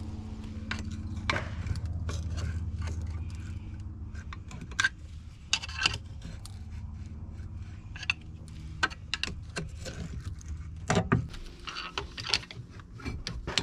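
Scattered metal clicks, knocks and scrapes of a flat screwdriver prying a brake caliper off its mount and the caliper being handled, over a steady low hum.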